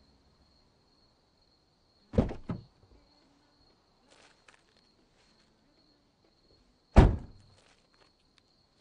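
A car door unlatching and swinging open with a double clunk about two seconds in, then shut with a loud thud about seven seconds in, with a few light footsteps in between and after.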